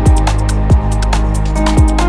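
Electronic downtempo instrumental music: three deep kick-drum hits with a quickly falling pitch, fast hi-hat ticks and held synth chords.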